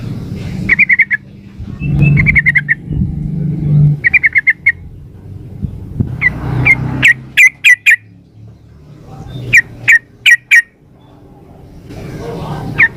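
Yellow-vented bulbul (trucukan) calls, played as a lure recording of a female calling a male: three quick bubbly runs of notes in the first few seconds, then two clusters of sharp separate chirps after about six and ten seconds. A steady low hum runs underneath.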